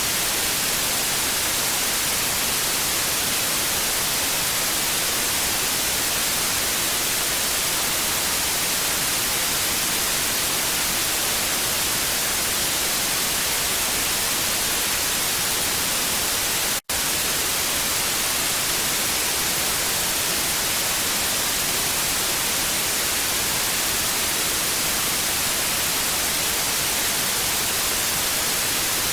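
Untuned television static: a steady, even hiss, brightest in the high frequencies, with one split-second dropout about two-thirds of the way through.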